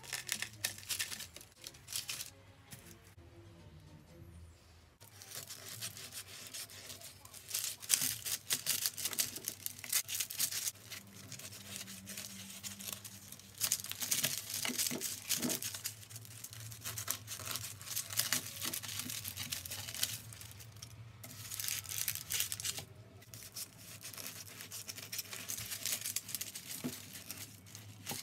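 Kitchen knife sawing through a crusty sourdough loaf on a wooden cutting board: a crunch of crust with each back-and-forth stroke. The strokes come in runs, with a quieter pause a few seconds in.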